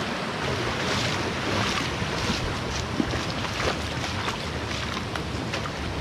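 Steady rush of a rocky mountain river and its waterfalls, with a few short, sharp ticks scattered through.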